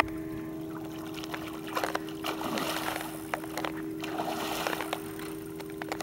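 Water splashing and sloshing beside a boat, stirred by a hooked tarpon swirling at the surface, with irregular clicks and splashes. A steady low hum sits underneath.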